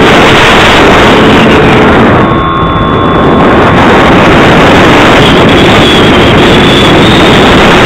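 Loud, steady wind rush buffeting the onboard camera microphone of an EasyStar II RC model plane in flight. The electric motor's steady tone is no longer heard, so the plane is gliding. A faint thin whine comes and goes, dipping briefly about two seconds in.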